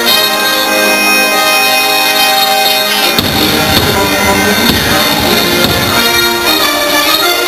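Patriotic fireworks-show soundtrack music, loud, with long held chords. About three seconds in, deep booming joins beneath the music and carries on.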